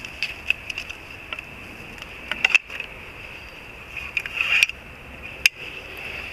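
Metal climbing stick being unstrapped from a tree trunk: scattered clicks and knocks of the stick and its cam cleat as the rope is worked free. About four and a half seconds in, a rasp rises as the rope is pulled through the cleat, and a sharp click follows about a second later. A steady high-pitched drone runs underneath throughout.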